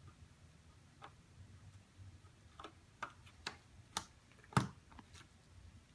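Sharp plastic clicks and taps from pushing RAM modules into motherboard slots, about seven in all, the loudest about four and a half seconds in: the slot's retention latches snapping shut as the sticks seat.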